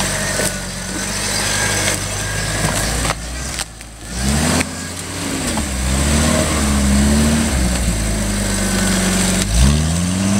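Jeep Wrangler YJ engine running as it crawls off-road, revved in surges that rise and fall about four seconds in and again near the end.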